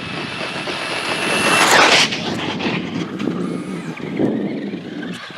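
Traxxas Bandit VXL electric RC buggy on oversized Stampede tires running flat out on pavement. The high whine of its brushless motor and gears climbs, is loudest about two seconds in, then gives way to falling drivetrain and tire noise.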